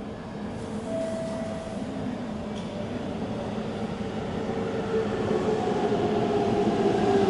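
Hanshin Railway electric train approaching along the station track, its running noise growing steadily louder as it nears. A steady whine comes up over the rumble about halfway through.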